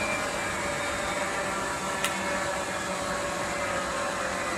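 MSP-1300 single-arbor multi-rip circular saw running steadily as it rips stacked HDF hardboard sheets into strips. Its hum carries a few faint steady tones, and there is one sharp click about two seconds in.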